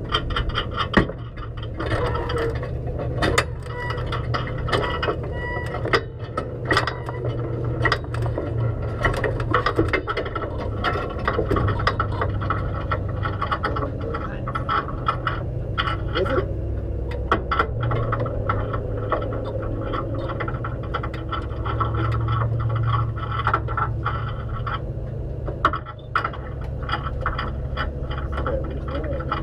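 Race car engine idling steadily, heard from inside the cockpit, with frequent clicks and rattles from the cabin.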